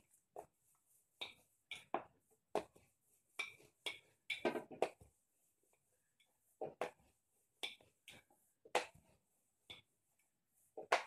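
Rolling pin rolling out a disc of roti dough on a plastic cutting board: short knocks and scrapes, roughly one a second, with a pause in the middle.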